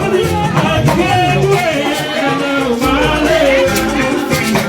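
Church music with several voices singing and shaken rattles keeping a beat.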